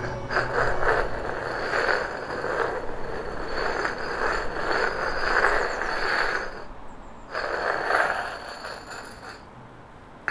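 Rough scraping noise rising and falling in slow swells, breaking off about six and a half seconds in, returning briefly and fading away near the end.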